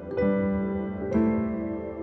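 Soft background music: sustained piano chords, a new chord struck just after the start and another about a second in.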